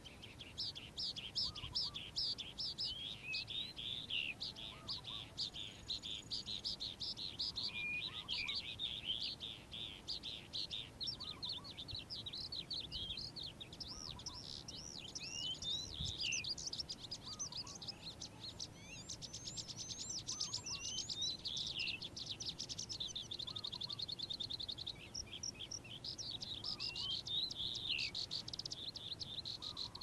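A lark singing a long, unbroken song of rapid, varied high notes, with fast rattling trills in the second half and a brief break about three-quarters of the way through.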